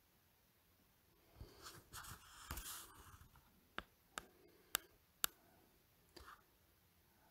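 A brief rustle of handling, then four sharp clicks about half a second apart and a softer tick a second later.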